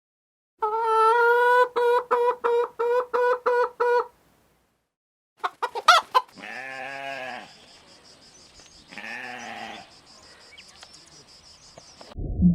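Farm animal calls: a clear pitched call that breaks into a quick run of repeated notes, about six a second, for a few seconds. After a pause come a few short sharp sounds and two shorter, rougher calls.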